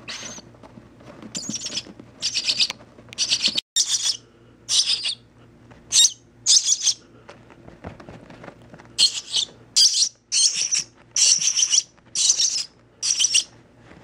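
Nestling songbird begging for food: a string of short, high-pitched cheeps, coming in a quicker run from about nine seconds in.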